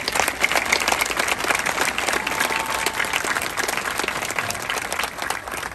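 Large audience applauding, a dense steady clapping that begins to die down near the end.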